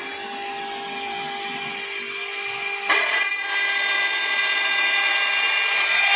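CNC router spindle whining steadily as its water-cooled bit grinds into a stone slab; about three seconds in the cutting jumps suddenly louder, with a harsh hissing grind that then holds steady.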